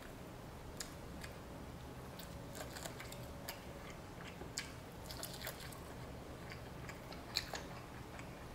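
A person chewing a mouthful of Chinese barbecue pork rib, with faint, irregular mouth clicks.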